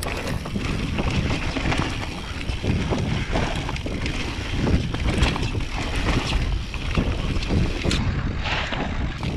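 Mountain bike on Maxxis DHF tyres riding down a rutted dirt trail: tyres rolling over dirt and the bike knocking and rattling over bumps, with wind buffeting the microphone.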